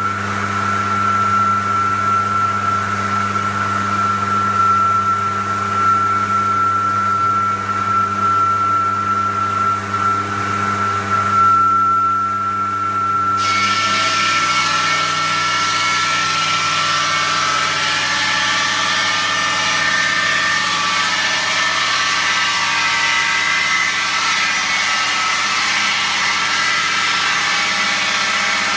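IMER Masonry 750 masonry saw running, its motor humming and the large blade spinning with a steady high whine. About halfway through, a harsher grinding noise suddenly joins as the blade cuts into the brick.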